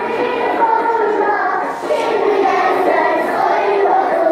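A group of young schoolgirls singing a children's song together in a circle game.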